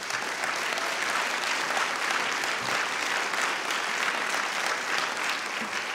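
A large audience applauding steadily, a dense even clatter of many hands clapping.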